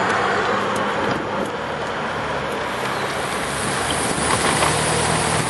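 Street traffic noise, with the steady hum of vehicle engines passing and idling, under a steady rush of wind over the microphone of a moving bicycle.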